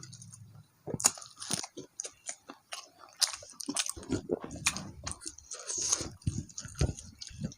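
Close-miked chewing and biting of food, with many short crisp crunches and wet mouth sounds.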